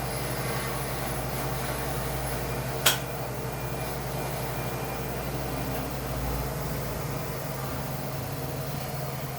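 A steady mechanical hum with one sharp click about three seconds in; the deepest part of the hum drops away a little after six seconds.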